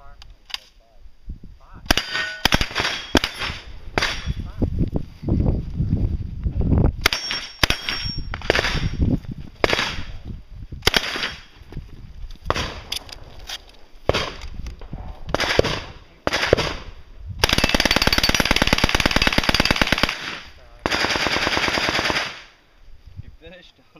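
Submachine gun fire. Short strings of shots start about two seconds in, followed near the end by two long full-auto bursts, one of about three seconds and one of about a second and a half.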